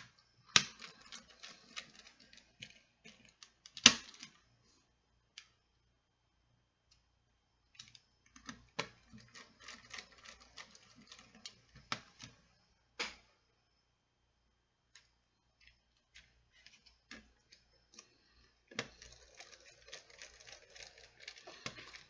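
A small screwdriver tip scratching, clicking and tapping against the plastic base of a Kato No. 6 model railroad turnout, in three runs of rapid small clicks with a few sharper taps among them.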